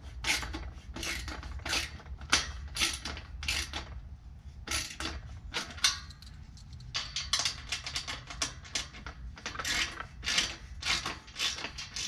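Irregular metallic clicks and clinks, about two a second with a lull a little past the middle, from hands working the hinge hardware of a steel farm gate.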